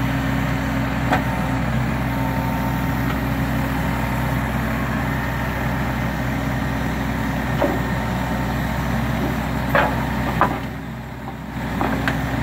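Diesel engine of a grapple truck running steadily while it powers the Prentice knuckle-boom loader's hydraulics, with a few sharp clanks as the grapple works over the steel rails. The engine sound drops briefly about eleven seconds in.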